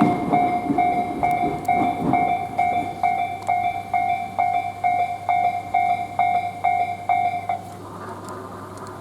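Level-crossing warning bell ringing at about three strokes a second, then stopping a little after seven seconds in as the crossing clears. Under it, a passing train's rumble fades away over the first two seconds.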